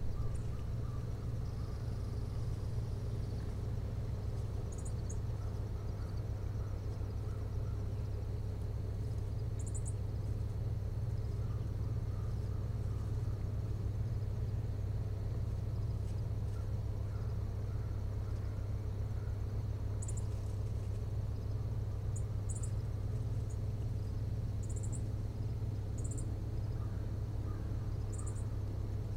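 Outdoor ambience: a steady low hum under short, high chirps that come every few seconds, singly and in pairs.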